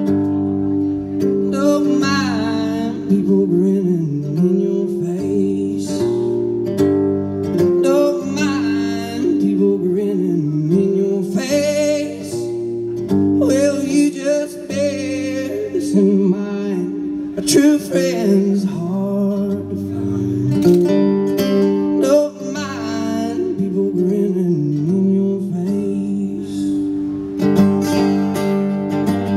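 Live solo acoustic guitar playing a song, with a man singing into a microphone in phrases that start about two seconds in, between steady guitar playing.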